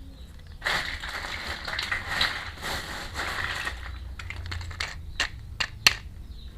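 Plastic toy packaging rustling and crinkling for about three seconds, followed by a series of sharp clicks and taps of small plastic toy pieces being handled, the loudest click near the end.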